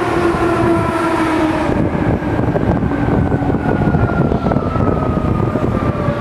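Seibu 2000 series electric train running along the platform as it slows, with rumbling wheels on the rails and a motor whine that falls steadily in pitch.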